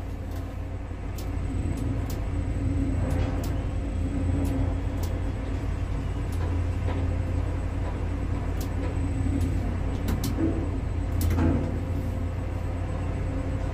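Construction-site ambience: a steady low rumble with faint, scattered clicks and knocks.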